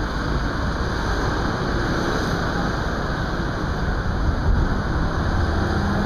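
Street traffic noise from cars and motorbikes: a steady, even rush with a heavy low rumble.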